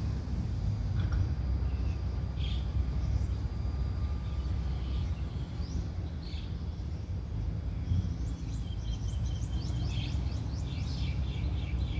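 Birds chirping, with a fast run of repeated high trilling notes starting about two-thirds of the way in, over a steady low engine rumble from the machinery unloading the container train.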